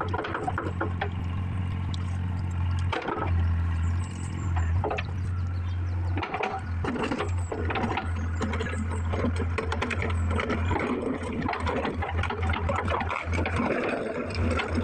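Steady low hum that drops out briefly about three seconds in and again near the end, with scattered clicks, knocks and clatter over it.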